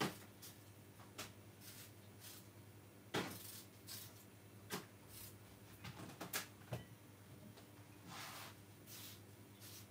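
Scattered light knocks, clicks and clatters of things being handled in a kitchen, with a brief rustling sound near the end, over a faint steady low hum.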